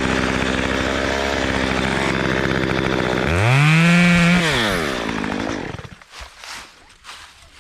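Chainsaw idling, revved once about three seconds in to a high whine that drops back after about a second, then shut off about six seconds in. A few light knocks follow.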